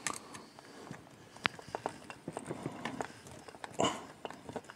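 Faint small clicks and scrapes of a screwdriver turning a screw with a spring washer into a metal shoulder part of a scale Terminator arm, with one sharper click about a second and a half in and a short louder noise near the end.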